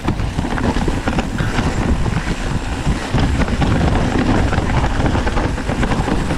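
Wind rushing over the camera microphone and the tyres rumbling on a dirt trail as a hardtail mountain bike rolls downhill, with frequent small knocks and rattles as the bike goes over roots and bumps.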